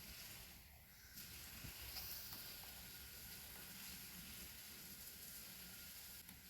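Near silence: a faint, steady hiss of background noise, with no distinct sound events.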